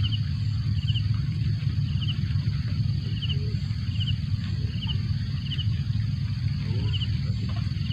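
Open-air ambience by a pond: a steady, fluctuating low rumble like wind on the microphone, under a continuous high insect drone, with short chirps of two or three quick notes repeating about once a second.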